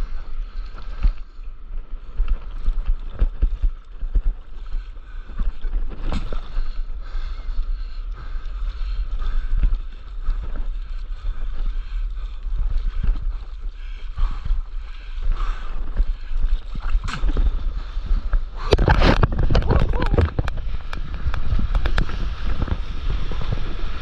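Sea water slapping and splashing against a paddleboard just below the microphone as it rides the swell, with wind buffeting the microphone. There are many small splashes, and a bigger burst of splashing about three-quarters of the way through.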